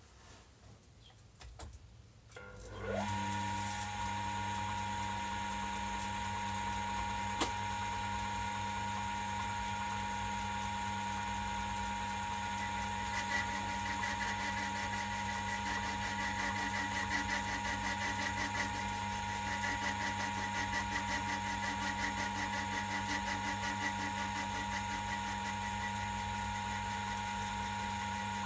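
An old lathe's electric motor starting up, its whine rising quickly about three seconds in, then running steadily with a low hum and a steady whine. From about halfway a rapid, rough chatter joins as the knurling wheel rolls against the spinning steel workpiece.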